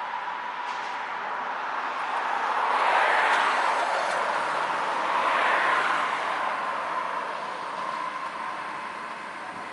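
Road traffic passing: two vehicles swell up and fade away one after the other, over a faint steady high tone.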